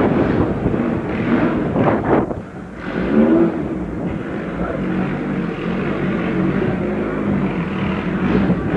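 Racing car engine running hard at high revs during a hill climb, with a brief dip about two seconds in, as at a gear change, then the pitch climbing again as it accelerates.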